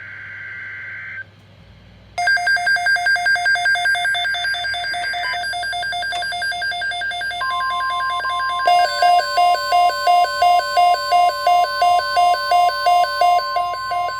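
Emergency Alert System tones: a burst of warbling two-pitch digital data (the SAME header), a brief near-pause, then electronic alarm beeping in rapid pulses, about three a second. About seven seconds in, the steady NOAA Weather Radio attention tone starts and sounds together with the beeping.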